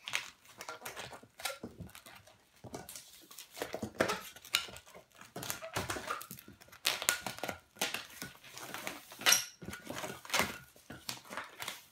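Long latex twisting balloons rubbing and squeaking against each other as they are twisted together by hand, in irregular short strokes.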